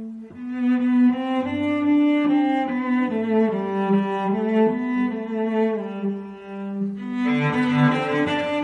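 Background music: a slow melody of long held notes that grows fuller and brighter near the end.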